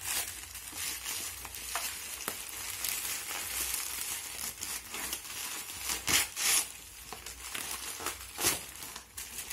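Gift wrapping paper rustling, crinkling and tearing as two children unwrap presents by hand, with a few louder rustles in the second half.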